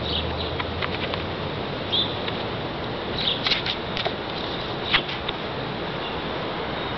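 Handling noise from loose photographs being shuffled and held up to the camera: scattered light clicks and taps, the sharpest about five seconds in, over a steady background hiss.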